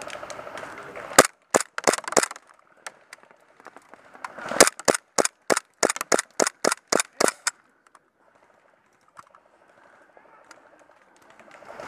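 Airsoft gun firing single shots as sharp cracks: a handful in quick, uneven succession, then a steady string of about a dozen at roughly three a second, stopping suddenly.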